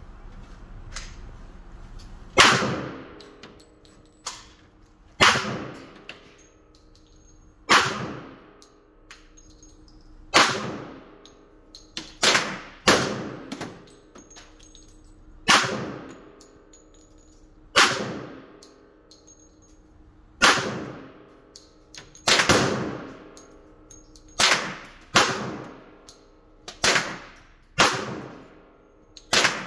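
Glock 41 .45 ACP pistol firing 200-grain reloads: a slow string of about fifteen shots, mostly two to three seconds apart with a few quicker pairs, each echoing in the range.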